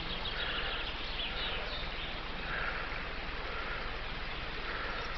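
Steady outdoor noise of someone walking through a conifer forest, with faint bird calls.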